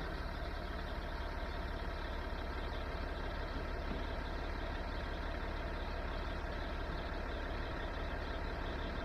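A vehicle engine idling steadily, a low, even drone with no revving.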